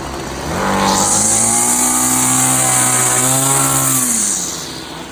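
Small two-stroke grass trimmer engine, freshly started, revved up from idle about half a second in, held at high revs for several seconds, then dropped back toward idle near the end.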